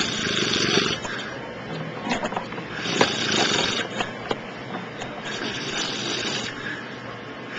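A man snoring in his sleep: three snores, about two and a half seconds apart, with a sharp click at the start of the second.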